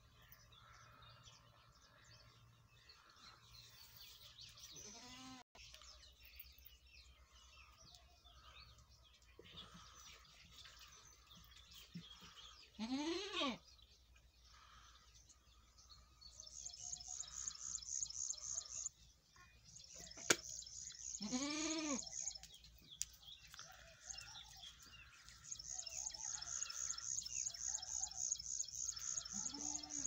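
Goats bleating: a few short, rising-and-falling bleats, two of them loud, about a third and two thirds of the way through, with fainter ones early and at the end. A high, rapid chirping comes and goes in the second half.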